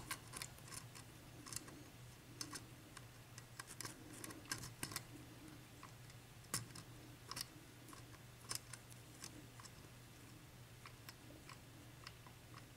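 Faint, irregular clicks and scrapes of a lock pick and tension wrench working the pin stack of a 7-pin Dorma mortise cylinder. The pins are being felt and set one at a time.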